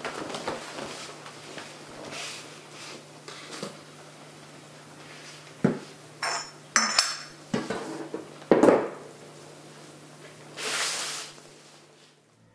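Dishes and cutlery being handled: soft knocks at first, then a run of louder sharp clinks and knocks, a few of them ringing, and a brief hiss near the end.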